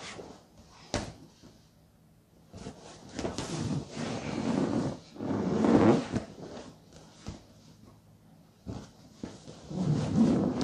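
Scuffing, rustling and bumping of a person rolling over and under an inflatable exercise ball on foam mats, with a sharp knock about a second in and another near the end.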